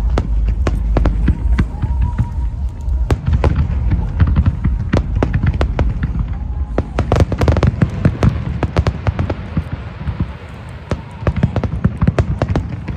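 Aerial fireworks going off in rapid succession: sharp bangs and crackles over a continuous low rumble of shell bursts, thickening into a dense barrage about seven seconds in, easing briefly, then picking up again.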